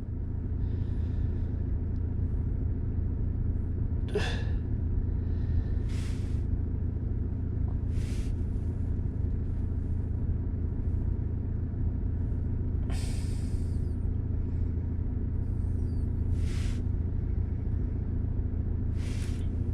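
A car engine idles with a steady low hum. Several short hissing noises sound over it.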